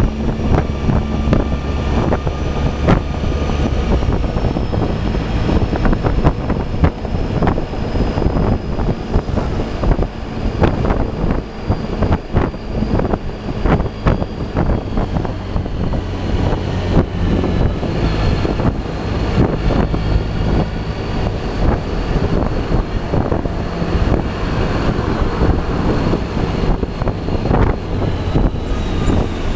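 Suzuki Burgman 650 maxi-scooter's parallel-twin engine running steadily while riding in traffic, with wind buffeting on the microphone.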